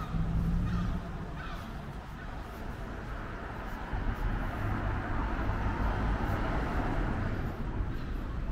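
Street traffic: a vehicle passes, its engine and road noise swelling in the middle and easing off toward the end.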